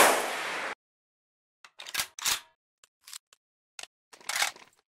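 An MG 34 machine gun's burst cuts off, and its echo fades away within the first second. Then comes a series of short metallic clicks and clacks as the gun is reloaded, the longest one near the end.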